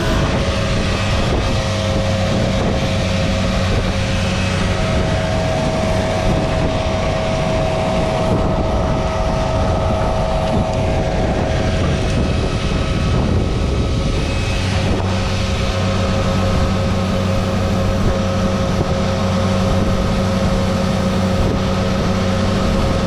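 Tractor's diesel engine running steadily, with a constant drone and hum.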